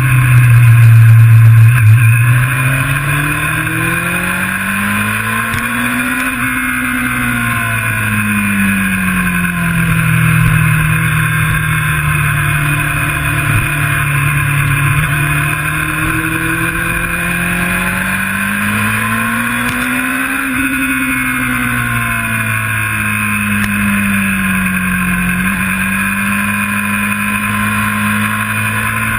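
Motorcycle engine running hard on a race track, recorded onboard: its note climbs and falls twice, about six seconds in and again about twenty seconds in, and holds steady between. It is loudest in the first couple of seconds.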